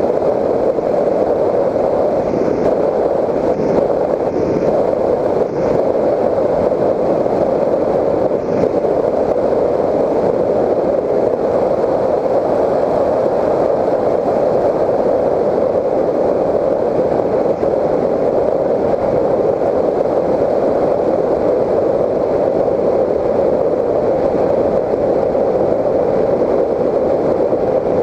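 Steady, muffled rush of airflow mixed with the electric motor and propeller of a Raptor 1600 FPV model airplane in flight, heard from on board.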